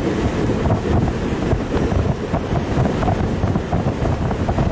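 Strong, gusty wind near a tornado buffeting the microphone, a dense low rush rising and falling unevenly.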